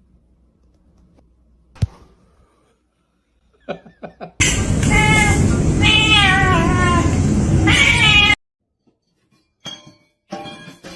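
A cat meowing and yowling several times in a row, the calls bending up and down in pitch, over loud background noise; it starts suddenly about four seconds in and cuts off abruptly about four seconds later.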